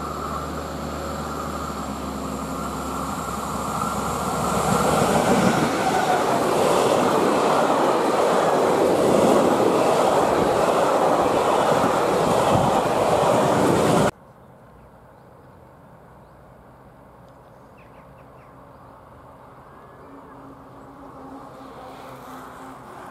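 A train passing close by: a steady hum at first, then rumble and wheel noise building about four seconds in and staying loud. The sound cuts off suddenly after about fourteen seconds, leaving a quiet background with a faint rumble that swells slightly near the end.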